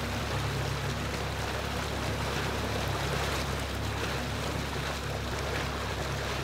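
Boat engine running steadily at low speed, not yet on plane: a steady low hum under rushing water and wind noise.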